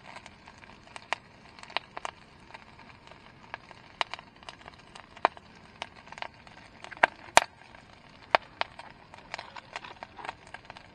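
Diced meat frying in oil in a camping pot, with hot fat spattering in irregular sharp pops and crackles, a few a second. The loudest pops come about seven seconds in.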